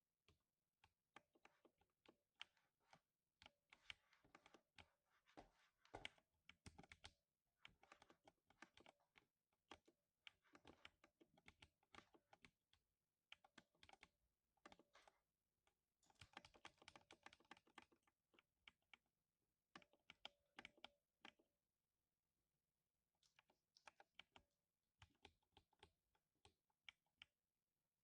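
Quiet typing on a lubed 60% mechanical keyboard: quick runs of keystrokes broken by short pauses, with a longer pause about 22 seconds in.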